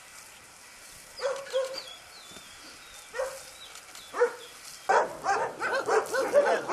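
Shelter dogs barking: a few single barks at first, then from about five seconds in many dogs barking together.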